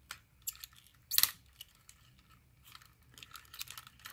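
Small clicks and crackles of a plastic action-figure mech's joints being handled and bent, with one louder crackle about a second in and a quicker run of clicks near the end.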